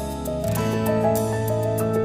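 Soft instrumental background music with slow held notes and a low bass note.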